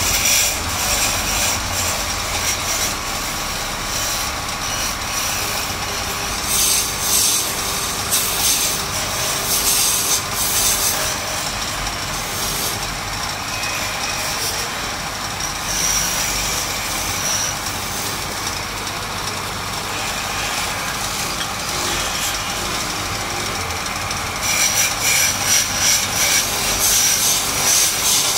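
Wood lathe running with a hand chisel cutting into a spinning wooden spindle: a steady motor hum under a rough scraping hiss from the cut. The scraping swells in stretches and is loudest near the end.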